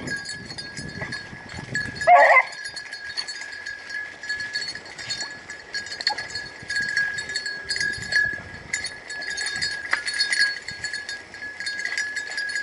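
A rabbit-hunting hound gives one short bay about two seconds in, giving tongue while running the rabbit's trail. A steady high-pitched tone and faint high ticking continue underneath.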